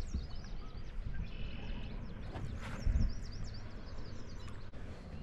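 Small birds chirping repeatedly in the background, with one short steady high note about a second in, over a constant low rumble. A single thump about three seconds in is the loudest sound.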